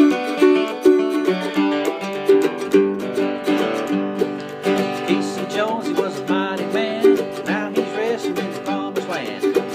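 Acoustic guitar played in a brisk country boogie rhythm. A man's voice joins in singing about three seconds in.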